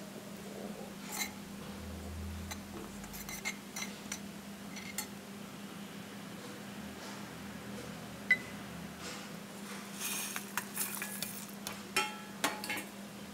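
Steel kitchen utensils clinking and scraping: a spoon and a small steel cup knocking against a steel jar as spices and dal are tipped in, with a run of ringing metallic clinks near the end.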